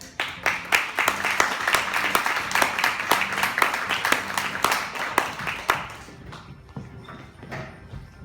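Audience applauding, dying down about six seconds in to a few stray claps.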